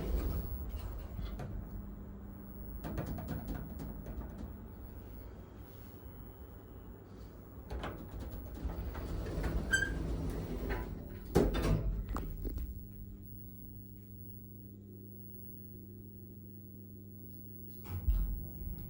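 ThyssenKrupp passenger lift working: its sliding doors knock and slide, with a loud thud about eleven and a half seconds in, over a steady machinery hum. After that a steadier drive hum sets in as the car travels, with a low thump near the end.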